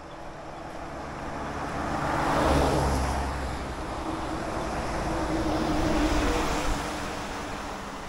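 A motor vehicle passing by. Engine hum and road noise swell to a peak about two and a half seconds in, hold, then fade away near the end.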